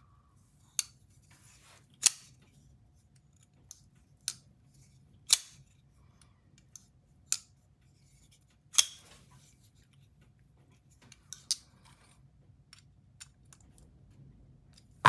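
Ketuo Ventr button-lock folding knife being opened and snapped shut repeatedly: about a dozen sharp clicks at uneven intervals as the blade locks open or closes. The knife's pivot tension is being tested after the pivot screw was retightened.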